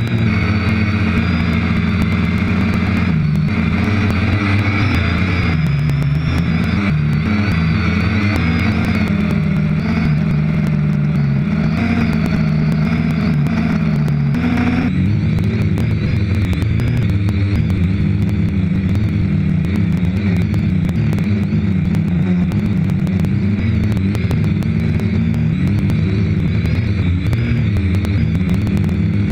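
Quad bike (ATV) engine running while riding over rough ground, its note rising and falling with the throttle. The sound changes abruptly about halfway through.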